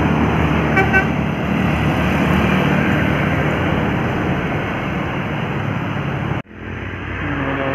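Road traffic with a heavy vehicle's engine running close by, a steady low drone with road noise. The sound drops out abruptly about six and a half seconds in and fades back up.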